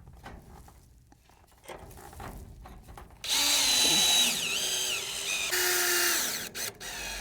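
Cordless power drill driving a screw in two runs, about three seconds in and again near six seconds. The motor whines, dipping in pitch under load partway through the first run, with light handling knocks before it starts.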